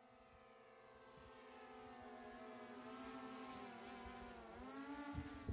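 DJI Mavic 2 quadcopter's propellers humming as it hovers in carrying a tethered bottle, growing louder as it nears. About four and a half seconds in, the pitch dips and then rises a little as it sets the load down. A couple of low thuds come near the end.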